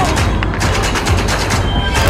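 Loud soundtrack music: a song with heavy bass and rapid, dense percussive hits.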